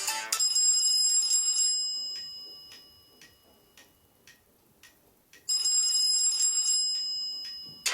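A ringtone played through the ZTE Kis smartphone's small speaker. A bright, high chime rings out and fades, with a steady ticking about twice a second. The chime strikes again about five and a half seconds in and fades.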